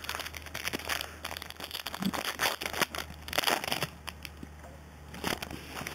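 Foil trading-card pack wrapper crinkling and tearing as it is opened by hand: a dense run of sharp crackles, loudest a little past the middle, with a few more near the end.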